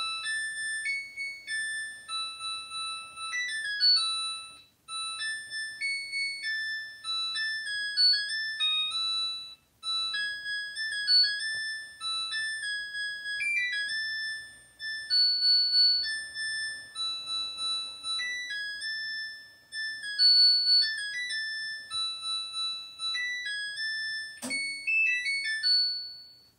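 Washing machine's end-of-cycle tune played on its electronic beeper: a long melody of pure, high beeping notes, signalling that the wash is finished and the laundry is ready to hang. A sharp click at the start, and another click near the end.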